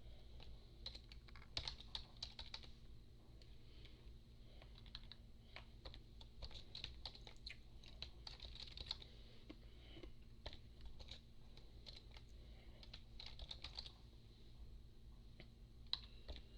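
Faint, irregular typing on a computer keyboard, clusters of quick key clicks with short pauses between.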